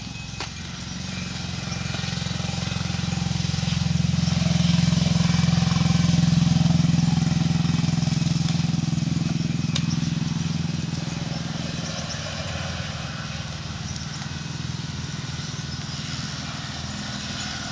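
A motor vehicle's engine passing: a steady low hum that swells over several seconds, peaks, then fades away by about twelve seconds in.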